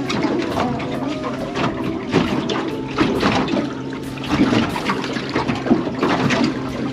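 Water splashing and trickling, with a steady low hum underneath.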